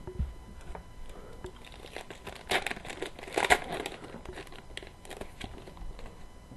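Foil wrapper of a hockey trading-card pack crinkling and tearing as it is opened, with the loudest crackles a little past the middle.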